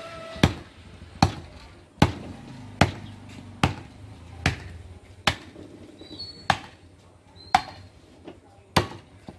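Butcher's cleaver chopping through beef into a wooden stump block: about ten heavy, sharp strikes at a steady pace of a little more than one a second, spacing out slightly near the end.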